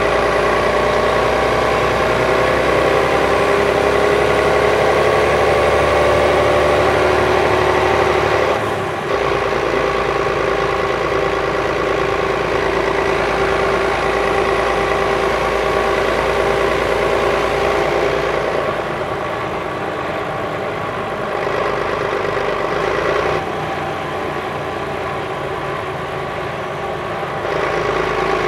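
Volvo B12B bus's DH12E six-cylinder diesel engine idling steadily while the bus stands still. Its sound steps down and back up several times, once about a third of the way in and a few times after the middle.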